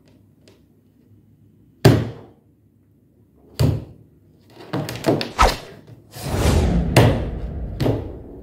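A string of heavy thuds and knocks: a single sharp one about two seconds in, another near the middle, a quick cluster of hits after it, then a longer noisy stretch with more hits near the end.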